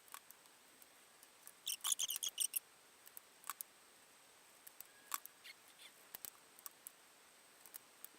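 Faint, scattered clicks and taps of small wooden clamp ends and magnets being handled and set down, with a short crackly rattle about two seconds in.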